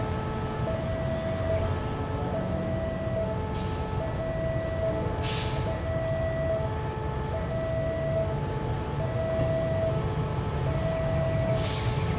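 Level-crossing alarm sounding a steady electronic two-tone pattern, a higher and a lower tone alternating, over the low rumble of a GE CM20EMP diesel-electric locomotive moving slowly past with its freight wagons. A few short hisses of air break in.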